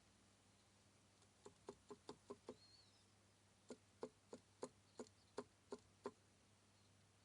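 Sharp metallic clicks of a MeMZ-245 connecting rod knocking against its crankshaft journal as it is rocked back and forth in the dismantled engine. First comes a run of about six quick clicks, then after a pause about nine more at roughly three a second. The clicking is the play of a worn connecting-rod bearing with too much clearance.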